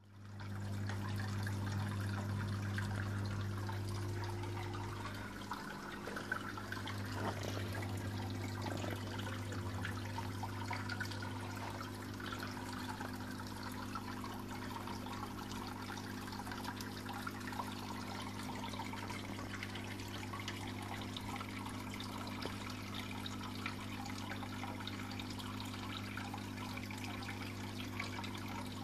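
Water trickling and splashing steadily into a garden fish pond, over the steady low electric hum of its pump.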